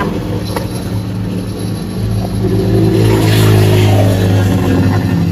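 Engine of a road vehicle running close by, swelling about two seconds in to its loudest near the middle, then easing slightly.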